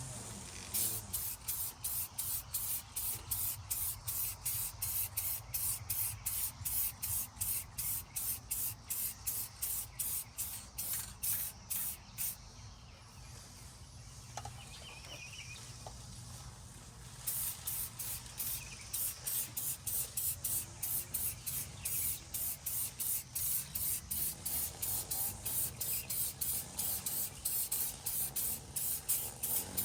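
Aerosol spray paint can sprayed in short, rapid, evenly spaced bursts, a few per second. The spraying stops for a few seconds about halfway through, then resumes at the same pace.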